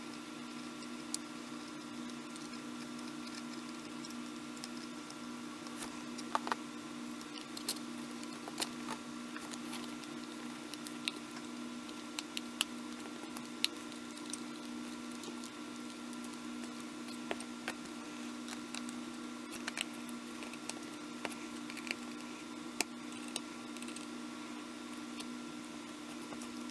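Scattered small clicks and taps as the metal and plastic parts of a Canon PowerShot SX730 HS are handled with tweezers and fingers during disassembly, over a steady low hum.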